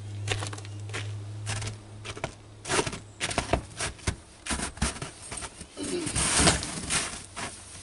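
Footsteps crunching in snow, a run of crisp crackling steps, then the rustle and creak of a nylon folding camp chair as someone drops into it about six seconds in. A steady low hum runs underneath.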